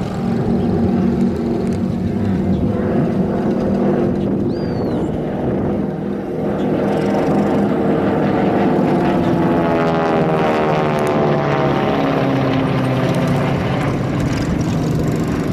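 Two North American AT-6D Texans flying in formation, their Pratt & Whitney R-1340 nine-cylinder radial engines and propellers giving a continuous droning, with the pitch of the engine note sweeping about ten seconds in as the aircraft pass and turn.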